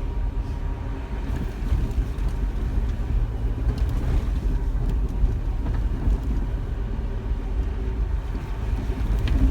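Jeep Wrangler driving along a dirt mountain road, heard from inside the cabin: a steady low rumble of engine and tyres.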